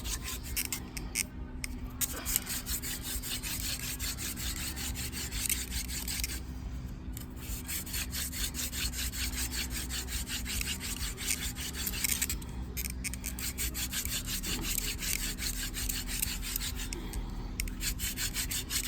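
Hand-drill fire-making: a wooden mule-fat spindle spun back and forth between the palms, its tip grinding in the hearth board's notch to build up hot dust. A fast, steady rubbing, broken by short pauses about every five seconds.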